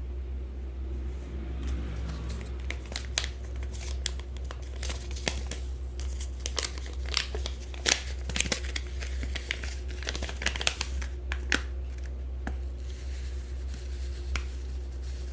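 Something crinkly being handled: irregular crinkling with many sharp clicks, busiest in the middle, over a steady low hum.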